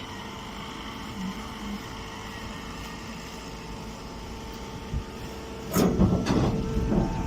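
Silage baler-wrapper machine running with a steady mechanical hum. Near the end it breaks into much louder clanking and clattering.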